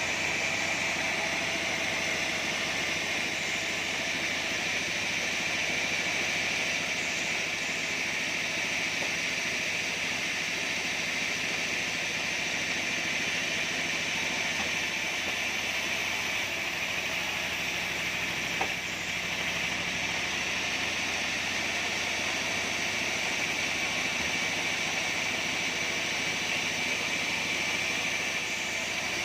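Bandsaw sawmill running, a steady mechanical noise with a high whine held at one pitch. A single short click comes about eighteen seconds in.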